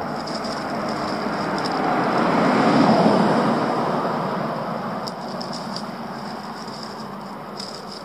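A vehicle passing on the road: its tyre and engine noise swells to a peak about three seconds in, then fades away.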